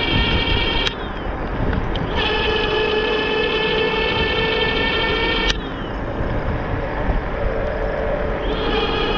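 Electric bike motor whining under power, a steady high whine with many overtones. It cuts out with a click about a second in and again past the middle. It picks back up each time, the second time rising in pitch, over a low rumble of wind noise.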